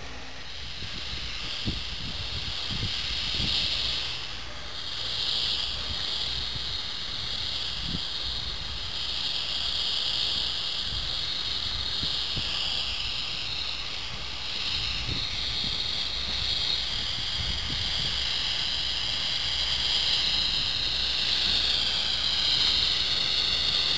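Southern Railway 4501 steam locomotive hissing steam as it drifts slowly toward the listener, the hiss growing louder near the end. Low thumps of wind buffeting the microphone underneath.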